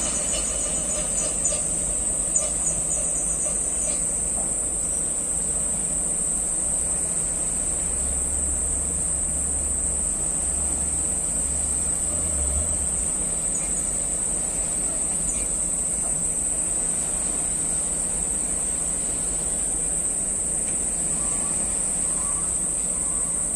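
A steady high-pitched insect chorus that doesn't let up, over a low rumble that grows a little heavier partway through.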